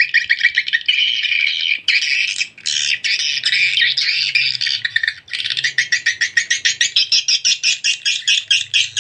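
Recorded edible-nest swiftlet call sound, a lure call for drawing swiftlets into a nest house, played from an MP3 amplifier through small horn tweeters: rapid, fast-repeating twittering chirps, with brief breaks about two and five seconds in.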